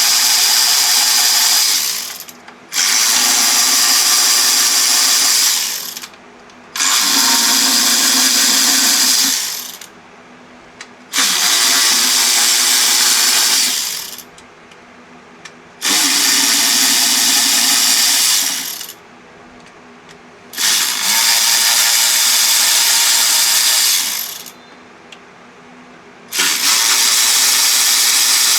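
Power tool running in seven separate spells of about three seconds each, with short pauses between them, as it backs out the eight 8 mm screws holding down a Pentastar V6's lower intake manifold.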